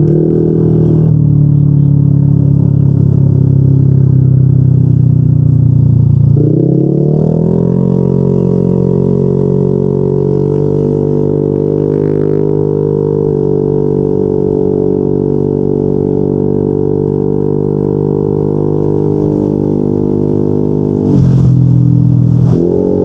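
Yamaha NMAX 155 scooter's single-cylinder engine through an aftermarket Yoshimura RS2 exhaust, a deep steady drone while riding. The pitch dips and then climbs back as the throttle changes, about six seconds in and again near the end.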